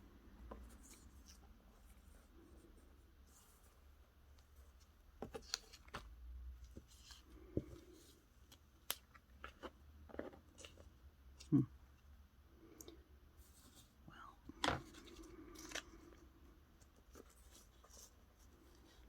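Quiet handling of paper and craft pieces: soft rustling with scattered light clicks and taps, and a sharper knock about a dozen seconds in and again near fifteen seconds.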